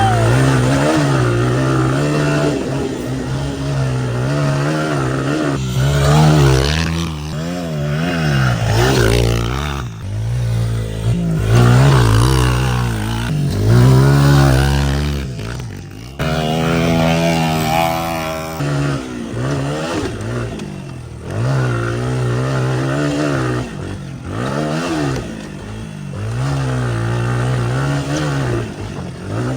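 Small motorbike engines being ridden, revving up and down again and again, the pitch rising and falling every second or two, with a few abrupt breaks in the sound.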